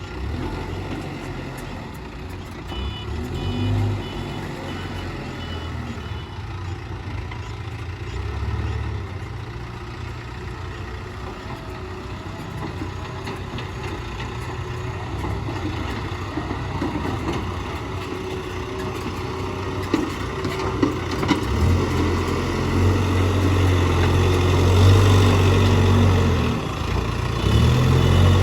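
Case 770EX backhoe loader's diesel engine running under load, getting louder as it works harder near the end. A reversing alarm beeps briefly at the start and again near the end.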